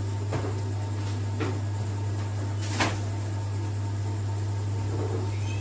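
A steady low hum with a few light knocks over it, the loudest about three seconds in.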